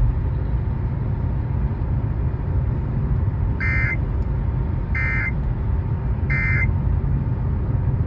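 Steady low rumble inside a car's cabin, with three short electronic beeps a bit over a second apart from about halfway through.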